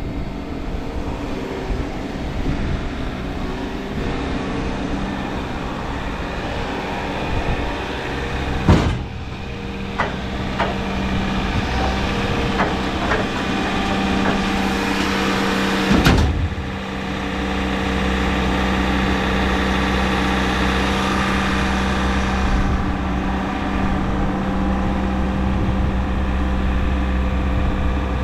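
A machine's motor running steadily with a low hum, with two loud sharp knocks, one about 9 seconds in and one about 16 seconds in, and a few lighter clicks between them.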